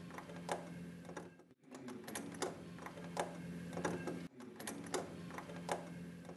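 Lock pick working inside a door lock: irregular small metallic clicks and ticks over a low steady hum, with two brief breaks in the sound.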